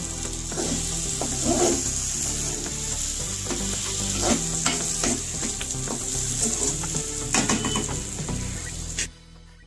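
Spiced masala stuffing sizzling in hot oil in a non-stick kadhai, with the gas already turned off, while a spatula stirs and scrapes it in quick repeated strokes. The sizzle cuts off abruptly about nine seconds in.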